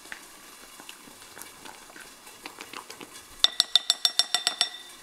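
A green silicone spatula stirring and scraping cooked oats in a glass bowl, then knocking against the bowl in a quick run of ringing clinks, about eight a second, for a little over a second, starting about three and a half seconds in.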